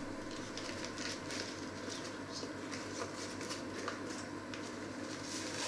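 A paper flour bag being picked up and handled, with light crinkling and small ticks scattered throughout, over a steady background hum.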